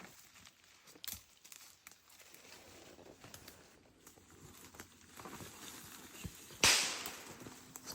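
Scattered rustling and crunching, like footsteps and movement through dry leaves and brush, with one louder, sharp rustle near the end.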